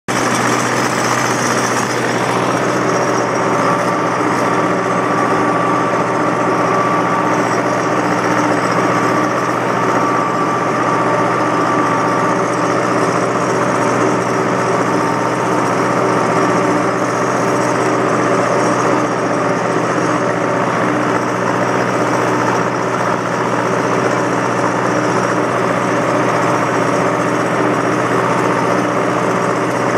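1985 Belarus 420A tractor's diesel engine running steadily under load, pulling a four-bottom plow through the soil, heard from the operator's seat.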